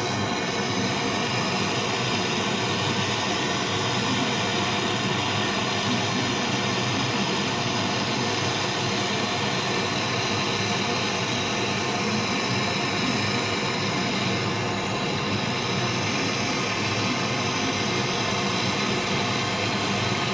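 Steady machine noise, a constant hum with a hiss over it, running evenly without change.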